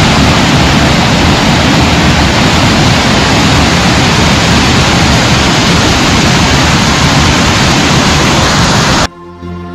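Steady loud rush of a waterfall's falling water, close to the microphone. It cuts off abruptly about nine seconds in, and music starts.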